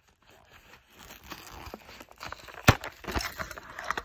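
Plastic blister of a Hot Wheels short-card package being torn open, crinkling and crackling, with one sharp snap about two and a half seconds in.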